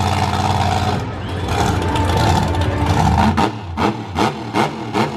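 Monster truck engine running loud, then from about three and a half seconds in revved in quick repeated blips, nearly three a second.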